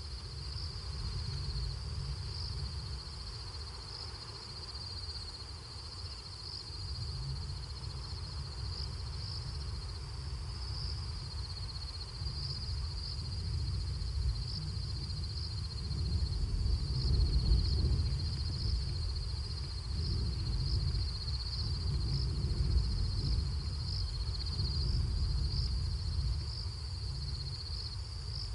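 Night insects trilling steadily at a high pitch, with a low rumble underneath that grows louder in the second half.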